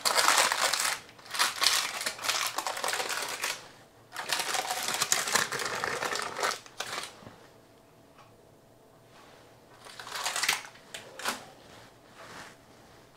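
Baking parchment rustling and crinkling as it is peeled off baked cakes, in several long bursts over the first seven seconds, then quiet except for two short rustles about ten seconds in.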